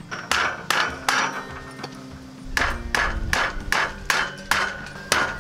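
Hammer blows on a wooden 2x4 door frame. There are three quick strikes, a pause of about a second and a half, then a steady run of strikes at about two and a half a second.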